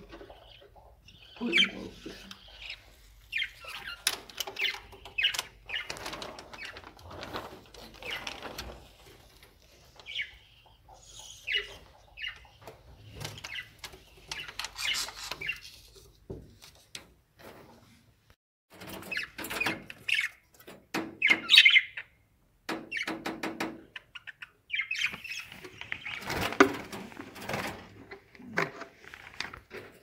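Budgerigars chirping and chattering in short, irregular bursts, with scattered clicks among the calls.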